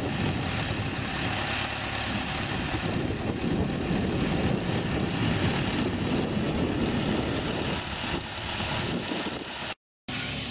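Kohler generator's engine running steadily with an even drone. The sound drops out for a moment near the end.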